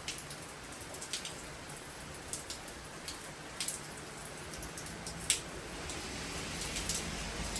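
Heavy rain falling steadily, with single drops tapping sharply close by; the downpour grows louder over the last couple of seconds.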